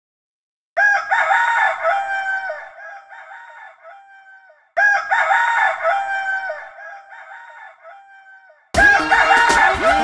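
Rooster crowing cock-a-doodle-doo twice, the same crow repeated about four seconds apart, each trailing away. Music comes in just before the end.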